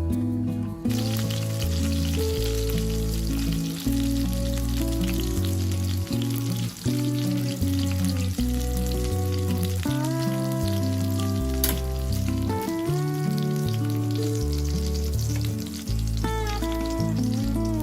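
Chả lá lốt, meat rolls wrapped in betel leaves, sizzling as they fry in hot oil. The sizzling starts about a second in and carries on under background music with a moving bass line.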